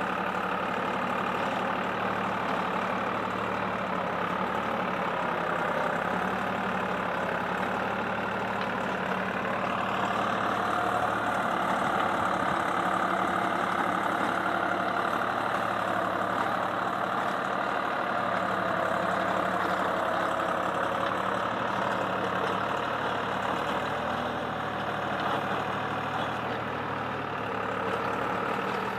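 Deutz-Fahr Agrolux 55 E tractor's diesel engine running steadily under load while pulling a mouldboard plough through soil. It grows a little louder and brighter from about ten seconds in.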